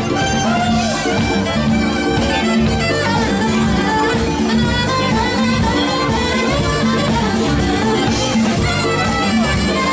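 Live funk band playing a dance number with a steady beat: saxophone, congas, drum kit, bass and guitar.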